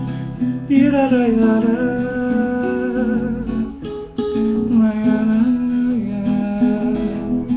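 Acoustic guitar strumming the introduction of a samba-pagode song, with a voice humming along without words.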